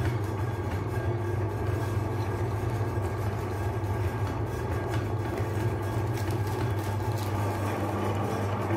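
Electric meat grinder's motor running steadily, a low, even hum with the auger turning in the empty aluminium head.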